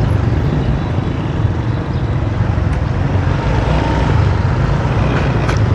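Steady motor-vehicle traffic noise: a continuous low rumble of engines and tyres with no single event standing out.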